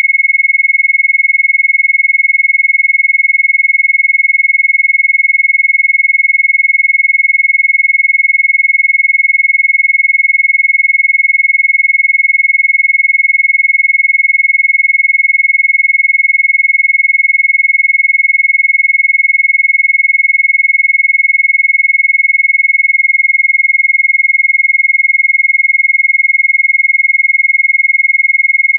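Steady, high-pitched electronic sine tone of a Rife-frequency track, held at one pitch near 2 kHz, then stepping to a slightly lower pitch about two-thirds of the way through.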